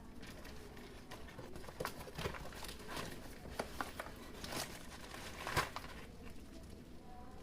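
Parcel packaging being handled: plastic crinkling and rustling with a scattered handful of light clicks and knocks, the sharpest about five and a half seconds in.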